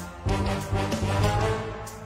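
Instrumental theme music for a programme break, with a steady beat and a strong bass line.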